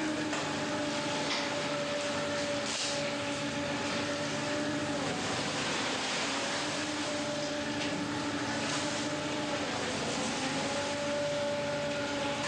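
Steady drone of a fishing boat's engine and deck machinery, with hums that come in and fade out every few seconds and a few faint knocks.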